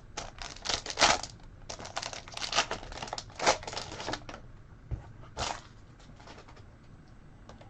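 Foil trading-card pack wrapper crinkling and being torn open, a quick run of rustles for about four seconds, then one more crinkle a little past five seconds before it goes quiet.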